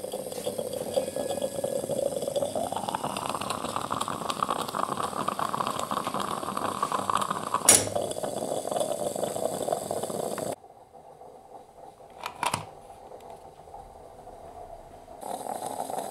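Moka pot gurgling and hissing as the coffee is pushed up, rising in pitch a couple of seconds in, with a sharp click about eight seconds in. The sound drops away abruptly about ten seconds in, leaving a faint hiss with a couple of clicks, and comes back near the end.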